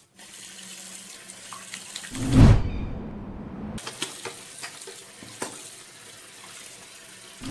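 Tap water running steadily into a ceramic washbasin. About two seconds in, a loud deep whoosh swells and fades, and a few light clicks follow.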